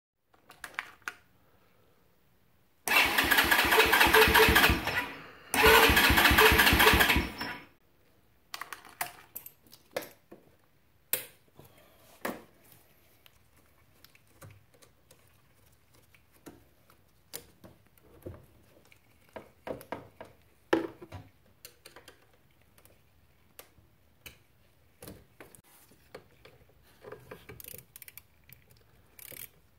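Honda TRX90EX's single-cylinder four-stroke engine turned over by its electric starter in two bursts of about two seconds each, without catching: a no-start typical of the carburetor clogged with varnish after months of sitting. Light clicks and knocks of hand tools follow.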